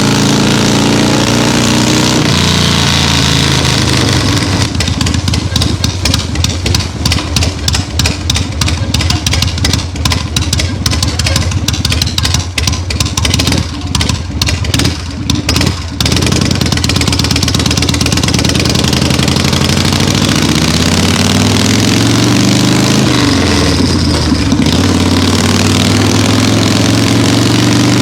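Harley-Davidson Shovelhead V-twin running through a straight shotgun exhaust with no baffles. The revs drop in the first couple of seconds, then it idles with an uneven, choppy beat for about ten seconds, and near the end the revs rise and fall again. The open exhaust gives a loud thud and is thought to lack back pressure.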